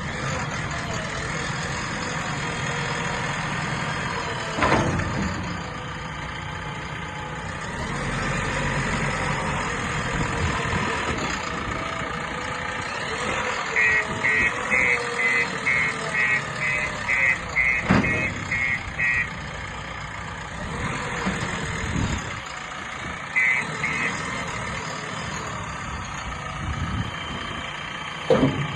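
JCB 3DX backhoe loader's 75 hp diesel engine running steadily, with its reversing alarm beeping about twice a second for several seconds around the middle and twice more later. A few sharp clunks.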